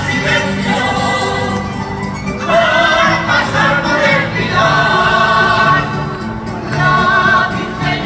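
Live folk music: several voices singing a melody with vibrato over guitars and other plucked strings, in phrases that pause and start again about every two to three seconds.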